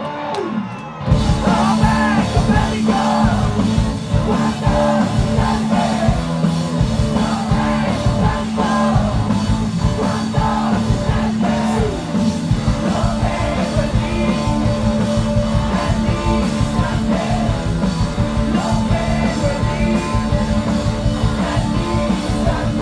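Rock band playing live: electric guitars, bass and drums with loud singing, the full band crashing in about a second in after a quieter guitar passage.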